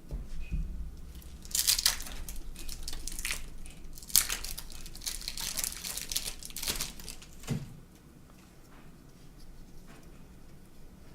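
A baseball card pack's wrapper crinkling and tearing as it is opened, in bursts over about six seconds, with a soft bump or two, then quieter handling.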